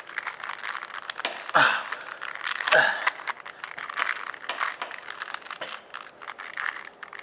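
A plastic Rubik's cube being twisted quickly to scramble it: rapid clicking and rattling of its turning layers, with two louder rustling scrapes about one and a half and three seconds in.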